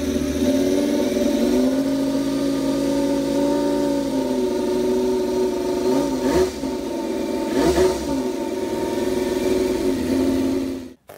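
Scale-model V10 engine with electronic fuel injection running on a test stand. It idles steadily, sags in pitch a second or two in and picks back up, then is blipped twice, revving briefly up and back down at about six and eight seconds. It cuts off abruptly just before the end.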